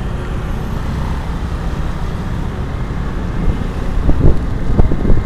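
Traffic noise from a motorcycle riding through congested city traffic: a steady low engine and road rumble. From about three and a half seconds in, louder irregular gusts of wind buffet the microphone as the bike picks up speed.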